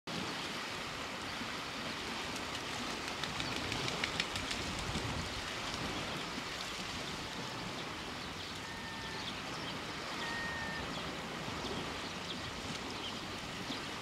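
Steady open-air noise of wind and water on a stony shore at low tide. A few faint ticks and crackles come a few seconds in, and two short faint whistles come a little past the middle.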